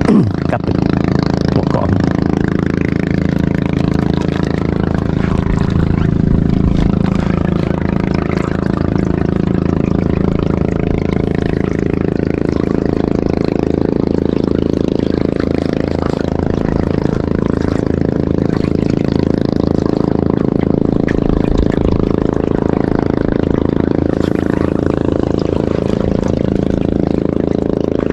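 Boat motor running steadily at an even pitch, a continuous engine hum.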